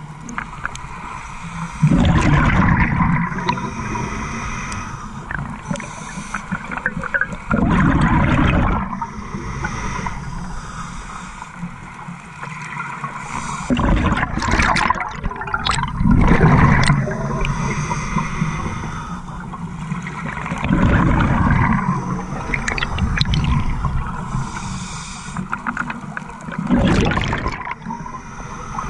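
Scuba regulator breathing heard underwater: the exhaled air bursts out as a loud rush of bubbles about six times, every five to six seconds, with quieter gurgling in between.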